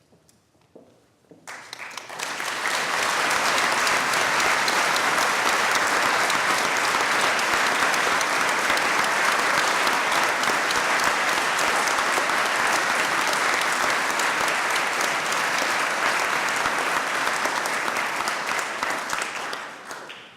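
Audience applauding. The applause starts about a second and a half in, swells within a second, holds steady, and dies away near the end.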